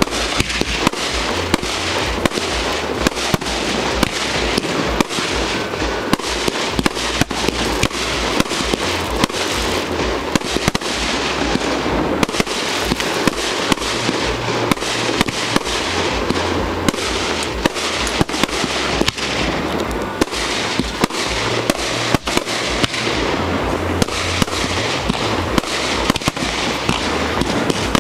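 Aerial fireworks bursting in a continuous barrage, with frequent sharp bangs over a steady crackle.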